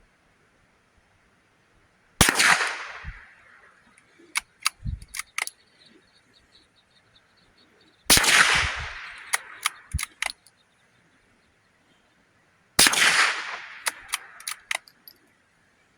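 Three gunshots several seconds apart, each loud and sharp with a long fading tail. After each shot comes a quick cluster of short metallic clicks as the gun's action is worked for the next round.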